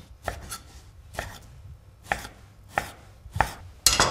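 A knife chopping pancetta, about eight sharp strokes at an uneven pace, with the loudest strokes near the end.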